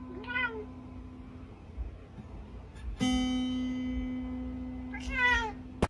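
A cat plucks a string of a toy acoustic guitar and the note rings on. An earlier note fades out in the first second and a half, and a new one is struck about three seconds in. The cat meows briefly near the start and again, louder, near the end.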